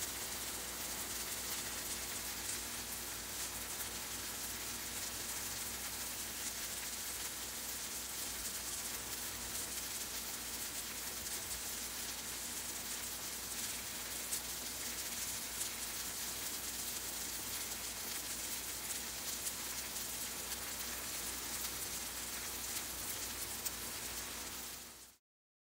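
An egg, tomato and olive omelette sizzling steadily in a frying pan: a fine crackle over a hiss, with a low hum underneath. The sound cuts off suddenly near the end.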